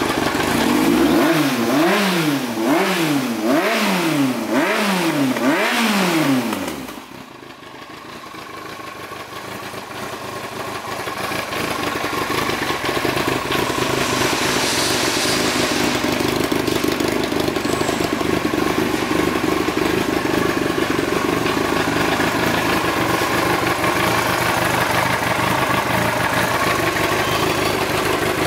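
Yamaha YZF-R1's 998 cc inline-four, breathing through an aftermarket carbon-fibre end can, revved in a series of quick blips about one a second. About seven seconds in it drops back to a steady idle.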